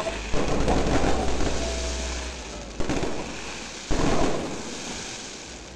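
Aerial fireworks bursting overhead: a bang about a third of a second in, then two more near three and four seconds in, each followed by a fading crackle.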